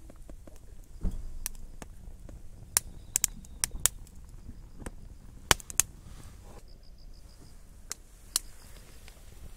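Split firewood crackling as it burns in a small metal box stove: about a dozen sharp, irregular pops and snaps over a low steady hiss.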